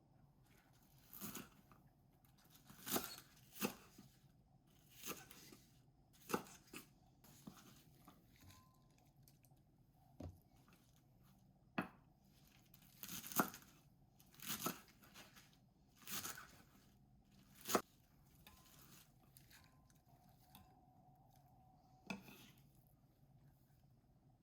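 Packaging being torn open and crinkled by hand: about a dozen short, irregular rips with pauses between them, fairly faint.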